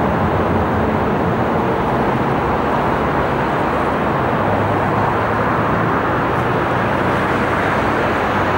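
Steady city traffic noise from cars driving along a busy avenue.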